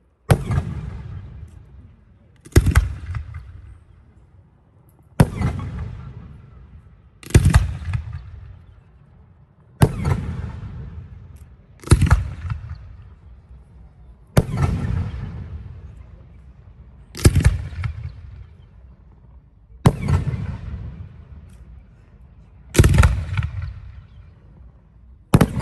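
Aerial firework shells bursting in a steady sequence, a sharp bang about every two and a half seconds. Each bang is followed by a long fading rumble.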